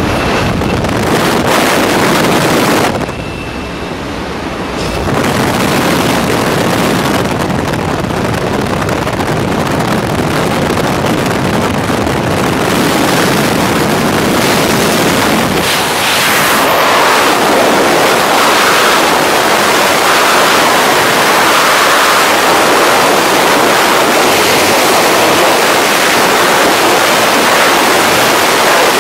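Wind buffeting a camera microphone on a tandem skydive: rushing air at the aircraft's open door, with a brief quieter dip about three seconds in, then louder, steadier freefall wind from about sixteen seconds in.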